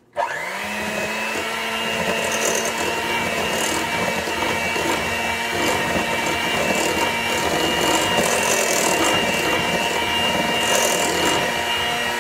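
Electric hand mixer switched on and running steadily, its motor whining as the beaters whip creamed butter and sugar with an egg in a glass bowl.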